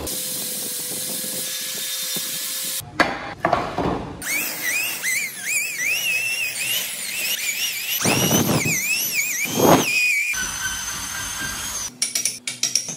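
Small power tools working wood in a string of short cuts. The middle holds a high-pitched whine that keeps rising and falling in pitch for about six seconds, typical of a high-speed rotary carving tool under changing pressure, and quick clicks come near the end.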